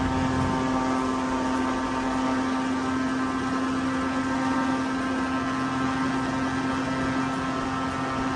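Airboat's engine and air propeller running steadily at cruising speed, one constant pitch with many overtones over a rushing noise.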